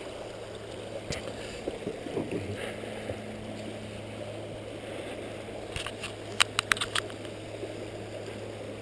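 Steady rushing of river water over the Hillsborough River rapids, with a steady low hum underneath and a few sharp clicks about six to seven seconds in.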